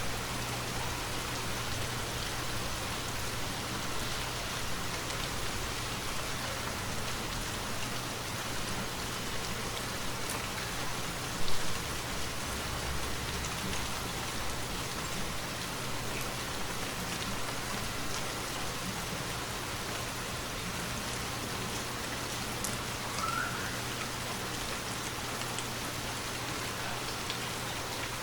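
Steady rainfall pattering on leaves and surfaces in a forest, an even hiss of drops. About eleven seconds in there is one brief, louder thump.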